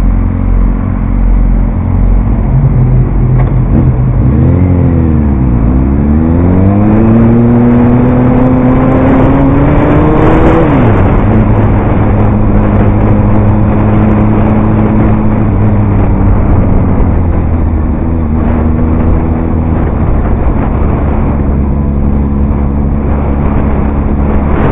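Motorcycle engine pulling away from a stop: the pitch dips and recovers as the bike sets off, then rises steadily as it accelerates, drops sharply about eleven seconds in on a gear change, and settles to a steady pitch at cruising speed.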